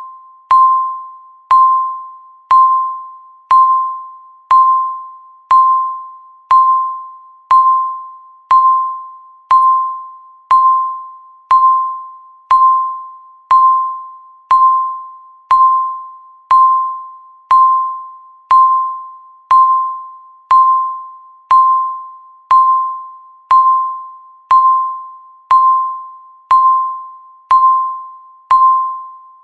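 Countdown timer beep, one short tone sounding once every second, each starting sharply and fading quickly.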